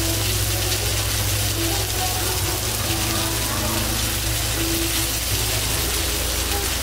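Chicken pieces sizzling in oil on a hot flat-top griddle, a steady hiss, over a steady low hum.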